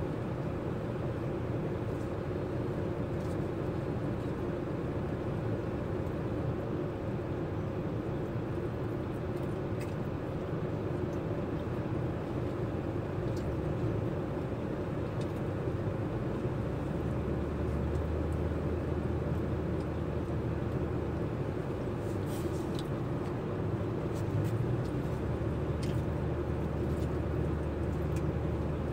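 Steady drone inside a truck cab, the engine idling and the air conditioning running. A deeper hum swells twice, once past the middle and again near the end, with a few faint clicks.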